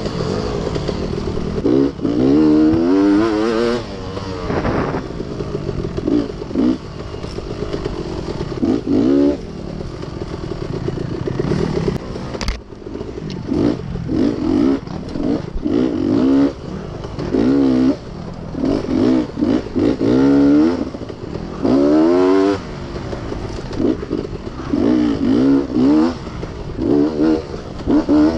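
Beta dirt bike engine revving up and falling back again and again as the throttle is opened and closed, with the bike clattering over rough ground and one sharp knock about halfway through.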